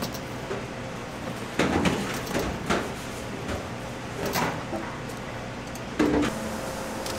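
Kitchen work sounds: a handful of short knocks and clatters, loudest just before two seconds in and again about six seconds in, over a steady low hum.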